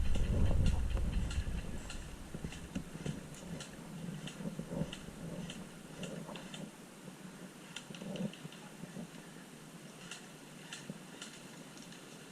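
Scattered sharp clicks at irregular intervals, with a few dull thuds and light rustling; a low rumble fades out over the first two seconds.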